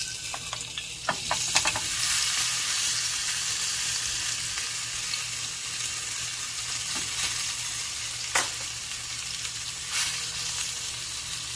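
A 40-ounce bone-in ribeye steak sizzling steadily on a stovetop grill pan as its fat melts and renders. A few light clicks come in the first two seconds, and two sharp pops of spattering fat near the end.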